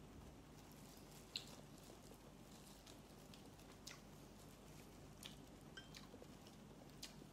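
Faint eating sounds: scattered soft clicks and smacks of chewing and of fingers pulling meat off a roast chicken, the sharpest about a second and a half in, over a steady low room hum.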